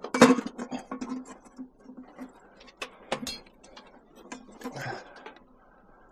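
Irregular small clicks, knocks and rattles of scrap metal being handled, loudest right at the start and thinning out toward the end.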